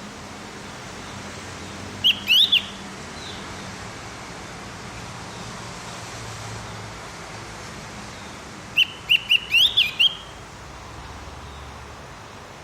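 Javan grey-throated white-eye (opior jawa or cucak gentong) singing two short phrases of quick, sharp whistled notes, about three notes two seconds in and about six notes near nine seconds in. A steady hiss lies under the song.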